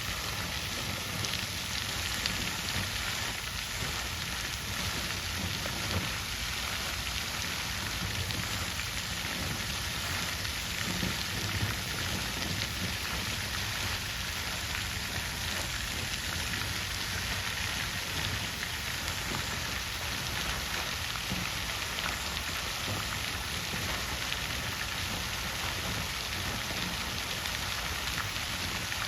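Water fountain splashing steadily, its falling water making a continuous hiss with small scattered drips and splashes.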